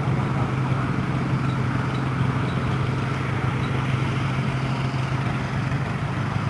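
Engine of an antique tractor running steadily at idle, a constant low hum with no change in speed.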